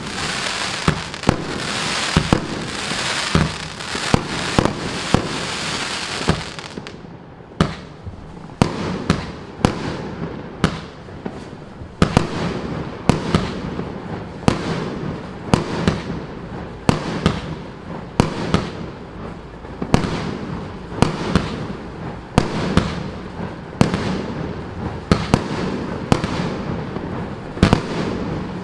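30 mm consumer firework cakes firing shot after shot. For the first six seconds or so there is a dense, continuous crackling hiss, then a regular run of separate sharp bangs, roughly one a second.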